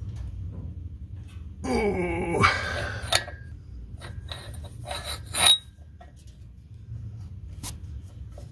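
A man's short strained groan, falling in pitch, about two seconds in. It is followed by a few sharp metallic clicks and clinks of a wrench at the rear U-joint strap bolts of a driveshaft, the loudest just past five seconds. A low steady hum lies underneath.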